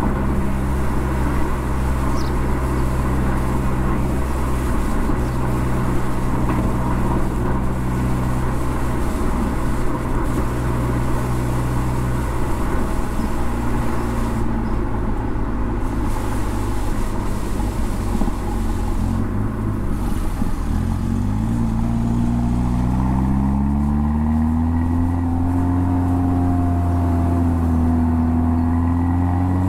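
Mercedes-AMG CLA45's turbocharged four-cylinder engine and exhaust under way, with road noise. It drones steadily at low revs, then the revs climb steadily in the last third as the car accelerates.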